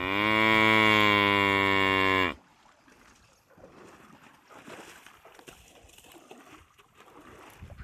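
Buffalo lowing: one long, loud moo of about two seconds that cuts off sharply, followed by faint background sound.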